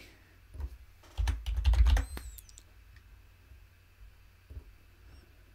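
Typing on a computer keyboard: a quick run of key presses over about two seconds, with dull thuds under the keystrokes. A single click follows about four and a half seconds in.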